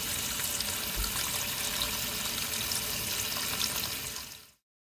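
Tap water running and splashing onto leafy herbs in a stainless steel bowl as they are rinsed, a steady rushing splash. It cuts off suddenly about four and a half seconds in.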